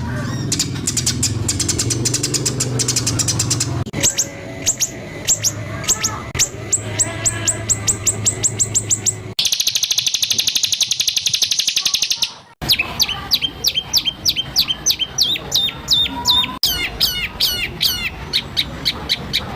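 White-rumped shama (murai batu) song of rapid, sharp repeated notes, the harsh 'tembakan' volleys used to tutor other birds, in several spliced recordings that change abruptly. About halfway through, one passage is a fast buzzing trill, and a low hum runs under the first few seconds.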